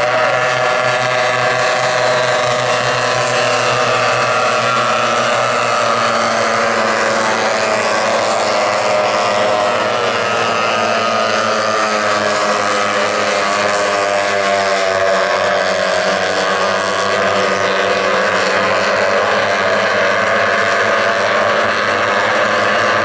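Several C-class racing outboard hydroplanes running at high revs on the race course. Their two-stroke outboard engines sound together in overlapping pitches that rise and fall as the boats speed along and turn.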